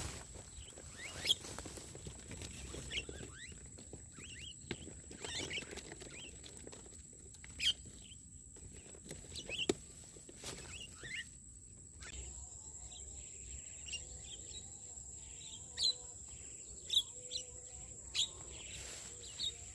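Scattered short bird chirps and calls over a steady, thin, high insect whine, with a few sharp ticks.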